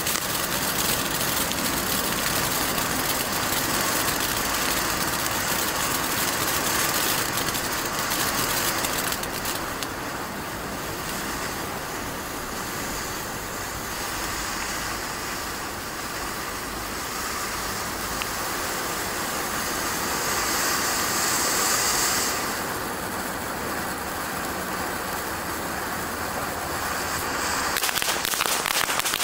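Standard Fireworks Laserquest ground fountain burning, its sparks spraying with a loud, steady hiss that turns to dense crackling near the end.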